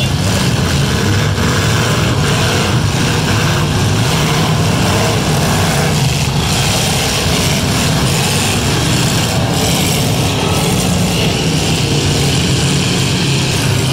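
Several demolition derby cars' engines running hard and revving together, with a few sharp crashes of metal as cars ram one another.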